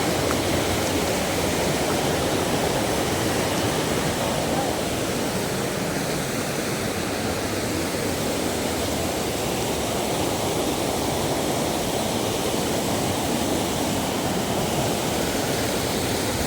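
Waterfall with a steady rushing noise of falling water.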